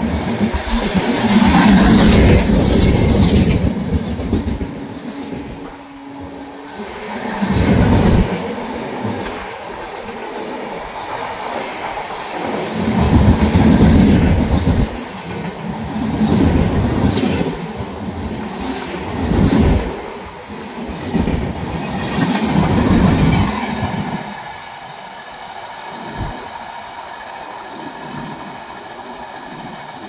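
Passenger express coaches running past at speed: a steady rush of wheel noise with rhythmic clatter over the rail joints, swelling loud again and again as bogies go by. About 24 s in, the last coach passes and the sound falls away.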